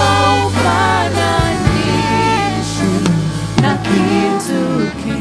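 Live gospel worship band music with drum kit and a sustained bass line, playing between the sung lines of a praise song.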